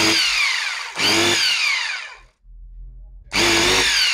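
A burned-out Makita 9554NB angle grinder's motor run in three short bursts, its whine falling in pitch through each one, while it arcs brightly at the brushes. A lower, quieter hum fills the gap before the third burst.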